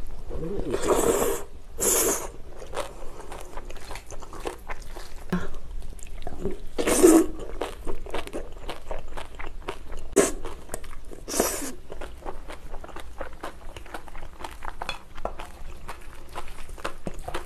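Close-up eating sounds of a person eating bibimbap: many small mouth clicks of chewing throughout, with a few louder crunchy bites or bursts, the loudest about seven seconds in.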